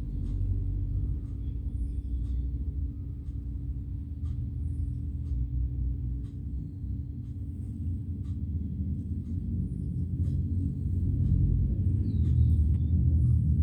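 A sleeping pet snoring, a low rumble that swells and fades and grows louder near the end.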